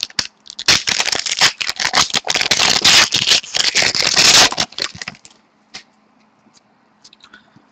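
A foil trading-card pack wrapper crinkling and tearing as it is ripped open: a dense crackle for about five seconds. Then a few faint clicks as the cards are handled.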